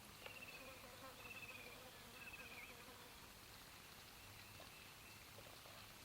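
Faint, near-silent outdoor quiet with an insect buzzing in the first half and three short, high trilled calls in quick succession.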